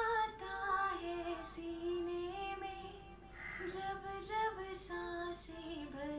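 A recorded solo singing voice played back from a Logic Pro X project, holding long notes and sliding between pitches.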